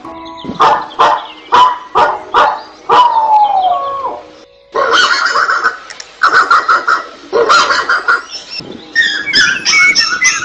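A person's voice imitating a dog: a string of short barks, then a falling whine. After a brief pause come rapid, repeated high-pitched calls.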